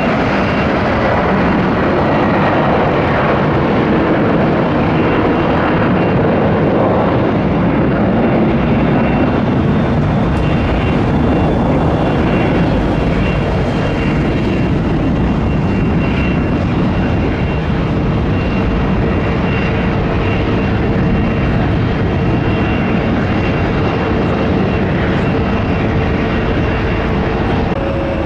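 Boeing 757-300's twin jet engines at take-off thrust, a loud steady rush of noise with a thin high whine running through it.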